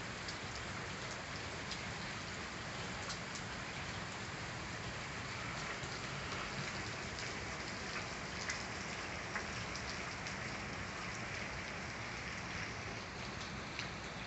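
Steady rain falling onto puddles, flooded grass and wet pavement: a constant even hiss with scattered sharper ticks of single drops.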